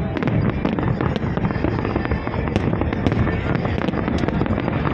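A fireworks display going off continuously: many sharp cracks and pops over a deep rolling rumble of shell bursts.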